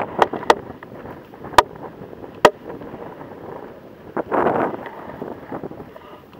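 Wind buffeting the microphone. Four sharp cracks come in the first two and a half seconds, the two loudest almost a second apart, and a louder rush of noise about four seconds in.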